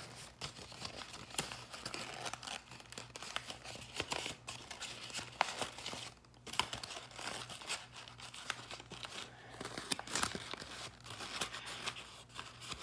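Paper rustling and crinkling in irregular fits and starts as a paper fortune teller is folded and pushed into shape by hand.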